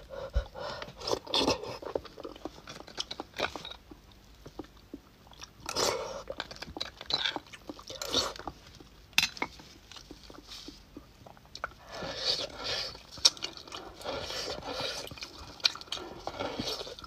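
Close-miked eating sounds of soft beef bone marrow in spicy sauce: wet smacking and chewing in bursts, with a few sharp clicks. Near the end the marrow is sucked straight from the bone.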